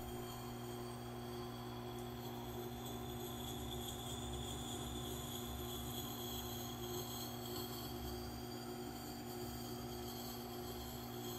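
Tormek T8 wet sharpening machine running with a steady hum while a hatchet's edge is held against its water-fed grinding stone.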